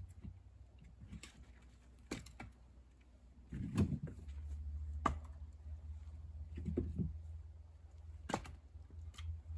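Scattered knocks and clicks, about six of them with a heavier thud about four seconds in, over a low steady hum.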